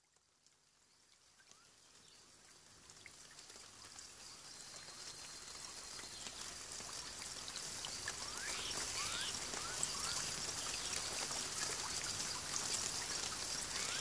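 Falling water: a faint hiss of pattering, trickling drops that fades in gradually and then holds steady. A few short faint chirps come about two-thirds of the way through.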